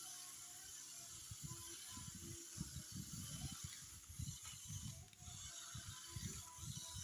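Toy remote-control off-road car's gearbox clicking and rattling as it drives, in a quick irregular run of low pulses starting about a second in, over a steady hiss.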